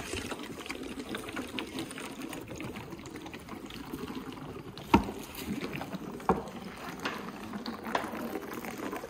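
Baby African elephant calf sucking and gulping milk formula from a large feeding bottle: a steady wet slurping with a rhythmic pulse. Two sharp clicks stand out, about five seconds in and again a second or so later.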